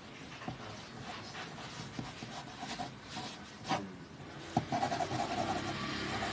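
Pencil scratching across paper in quick sketching strokes. About four and a half seconds in, a louder steady rushing noise with a faint wavering hum comes in over it.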